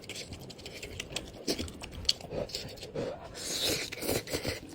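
Close-up scraping, crunching and clicking from hard-frozen spicy instant noodles being broken up and handled, with a longer scratchy rasp a little past the middle.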